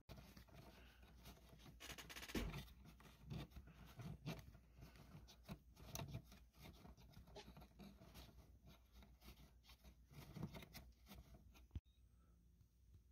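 Faint handling noise: scattered rustles, rubs and small clicks as parts and hardware bags are handled on a workbench. It drops away near the end.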